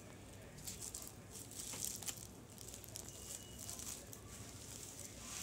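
Faint rustling and crinkling of bubble-wrap and plastic packaging being handled, with scattered light clicks, coming in two spells about a second in and near the end.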